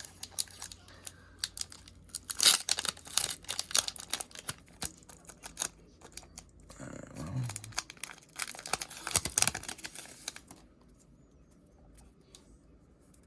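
Foil trading-card booster-pack wrapper being crinkled and torn open by hand: a long run of sharp crackles and tearing that dies down for the last few seconds.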